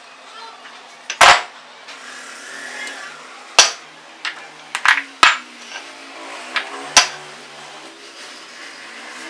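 Cast-iron pillow block bearing housings knocking and clanking against a steel workbench as they are handled: about six sharp metallic knocks, the loudest about a second in, the rest between about three and a half and seven seconds.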